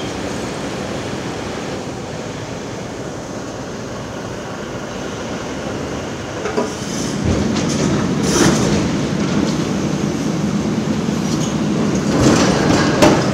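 Caterpillar 349E tracked excavator travelling, its steel tracks squealing and clanking over the running diesel engine. It gets louder from about halfway, with several sharp clanks.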